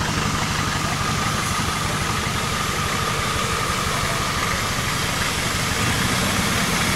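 Off-road 4x4 pickup's engine running steadily at low revs, a fast even pulsing with a faint whine over it, getting slightly louder near the end.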